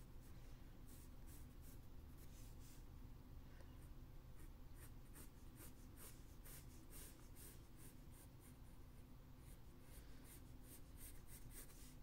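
Graphite pencil scratching faintly across drawing paper in many short strokes, with a brief lull about four seconds in, over a low room hum.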